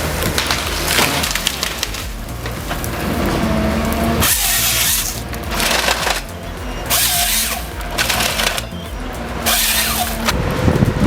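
A heavy machine's engine running steadily while wood is cracked and splintered, with three loud rushes of splintering over the few seconds.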